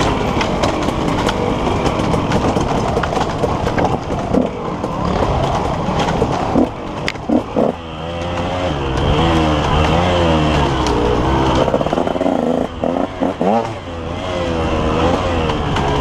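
KTM 150 XC two-stroke dirt bike engine revving up and down as it is ridden hard on a trail, its pitch rising and falling with the throttle. The throttle is shut off and blipped briefly a couple of times, about halfway through and again near the end.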